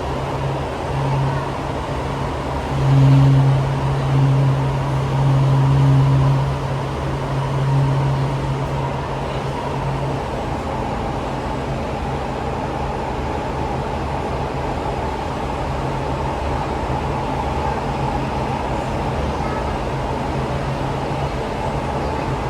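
Inside a Siemens C651 electric multiple-unit train running between stations: a steady ride rumble with a low hum that swells a few times in the first several seconds, and a faint steady whine.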